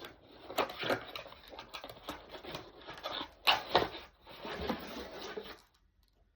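Rustling, scratching handling of a hair straightener's packaging during unboxing, with scattered clicks and two sharp taps about three and a half seconds in; it stops shortly before the end.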